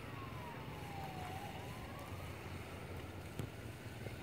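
Small motorcycle engine running at low revs, a faint steady hum. A thin high whine glides down and back up in the first two seconds, and there is one short click about three and a half seconds in.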